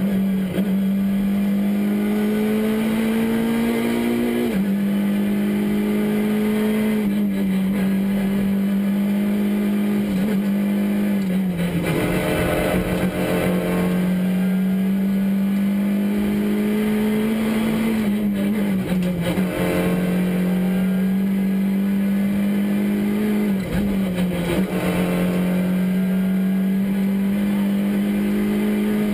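Škoda Fabia R2 rally car's 1.6-litre four-cylinder engine held at high revs, heard from inside the cabin. The pitch creeps up and then drops back about five times as the car is driven hard through the gears, with road and tyre noise underneath.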